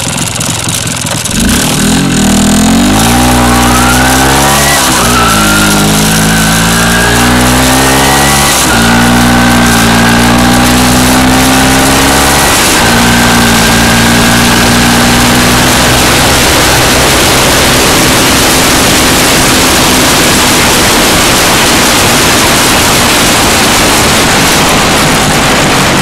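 MZ motorcycle engine pulling away and accelerating through the gears: its pitch climbs and drops back at three shifts, about 5, 9 and 13 seconds in, then it settles to a steady cruise. Wind rush on the microphone grows loud as the speed builds.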